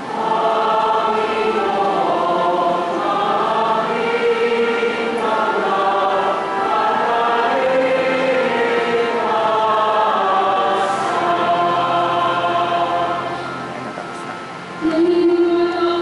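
A choir singing a sacred song, several voices moving through a melody together. About fifteen seconds in, the singing gives way to a single note held on one pitch, chant-like.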